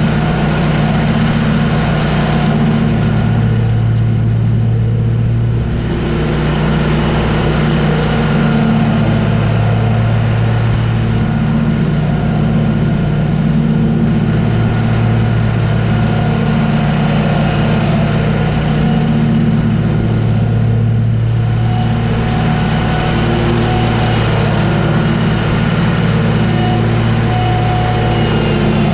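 Zero-turn lawn mower's engine and spinning blades running steadily while cutting grass.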